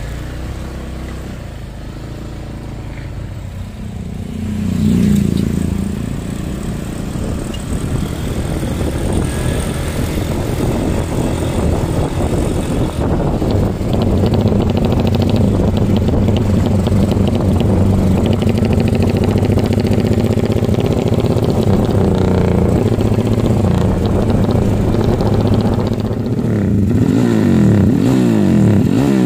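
Motorcycle engine running loudly, picking up about four seconds in and held at steady revs, with the pitch swinging up and down as it is revved near the end.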